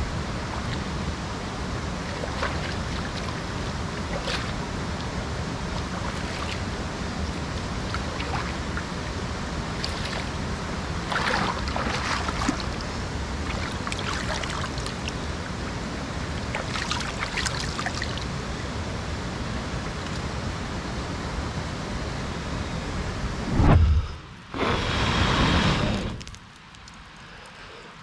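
Shallow rocky stream running steadily, with faint splashes now and then as hands rinse something in the water. Near the end the water sound breaks off for a few seconds of louder, different noise.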